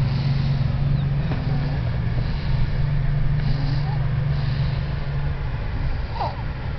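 Baby snoring loudly: a low, continuous drone that eases for a moment a little over a second in, then picks up again.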